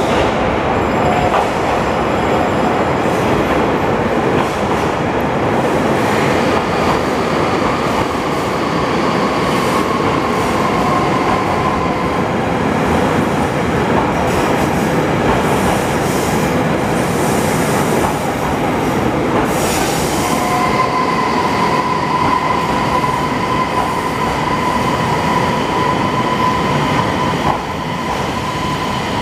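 JR Hokkaido 733-series electric multiple unit running into the platform and slowing to a stop, a steady rumble of wheels on rail. A high thin wheel squeal comes in briefly about a third of the way in and again, steadier, through the last third.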